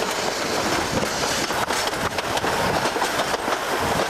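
A steam-hauled narrow-gauge Isle of Man Railway train running steadily, heard from aboard a carriage, with a dense run of wheel clicks over the rail joints.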